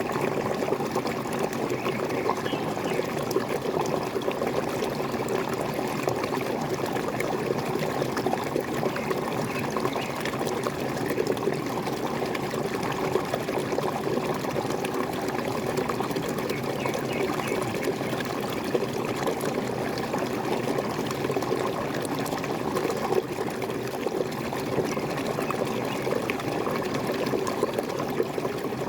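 Waterfall splashing and trickling steadily, a continuous even rush of falling water.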